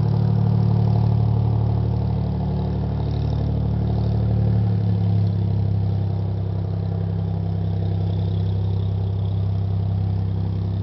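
Cessna 206's single six-cylinder piston engine and propeller running at low taxi power, a steady drone that drops a little in pitch about halfway through.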